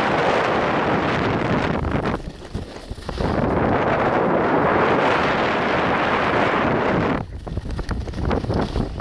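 Wind rushing over the microphone of a skier's camera on a fast downhill run. The rush drops away twice, briefly about two seconds in and again from about seven seconds in.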